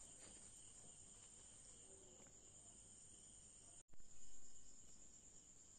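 Near silence: room tone with a faint, steady high-pitched whine and a momentary dropout about four seconds in.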